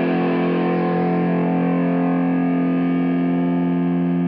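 Intro theme song ending on a single held chord of distorted electric guitar that rings on steadily, its brightness slowly fading.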